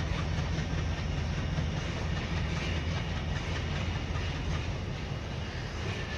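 ALCO diesel locomotive's engine running under load as it hauls a freight train, a steady deep rumble, with rail noise from the rolling wagons. The sound eases slightly toward the end.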